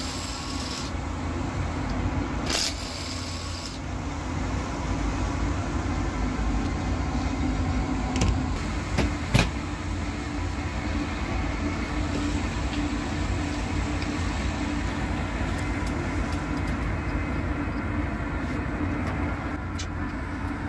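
A steady low mechanical hum, with a cordless drill-driver running in two short bursts within the first four seconds. A couple of sharp clicks or knocks come around the middle.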